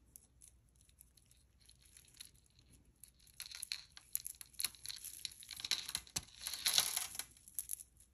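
Faint clicking and rustling of a tangled beaded chain necklace being worked loose by hand. The sound starts about three seconds in and gets busier toward the end.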